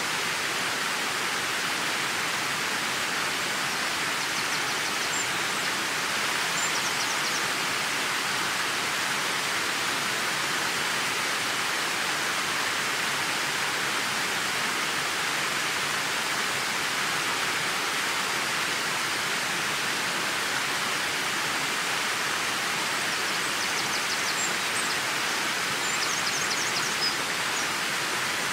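Steady rushing of a waterfall spilling over stepped rock ledges into a river pool, with a few faint high chirps about five seconds in and again near the end.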